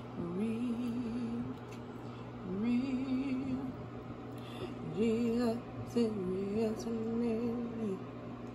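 A woman singing a slow, wordless tune in four phrases of long, wavering held notes.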